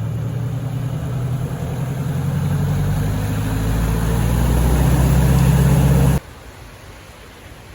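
Motor vehicle engine running steadily and growing louder, ending abruptly about six seconds in, then a quieter even rushing noise.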